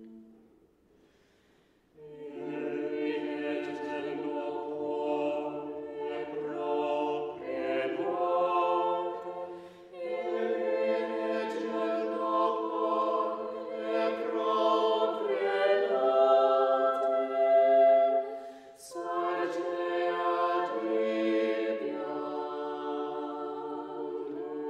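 Background choral music: a choir singing sustained chords a cappella in long phrases, coming in about two seconds in after a brief silence.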